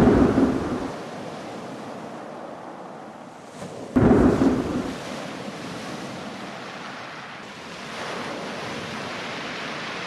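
Two sudden deep booms about four seconds apart, each rumbling away over about a second, over a steady rushing noise that swells slightly near the end.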